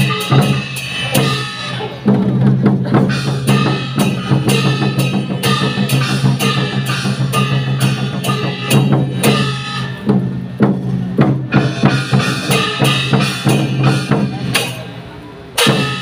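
Loud music for a Taiwanese opera (gezaixi) stage scene, driven by dense, fast drumming over a steady low sustained tone. It drops away briefly just before the end, then comes back in with a loud hit.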